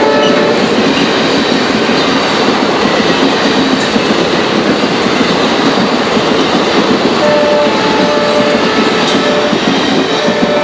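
Express train rushing past at speed: a steady dense rush and clatter of wheels on the track. The WDP4 diesel locomotive's horn dies away just after the start, then sounds again in a string of short blasts about three-quarters through, and once more near the end.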